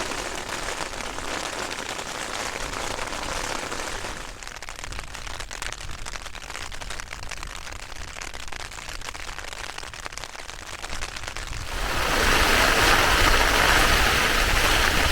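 Hailstones hitting a tent's fabric flysheet: a dense rattle of tiny impacts that eases a little in the middle and then grows louder and heavier about twelve seconds in.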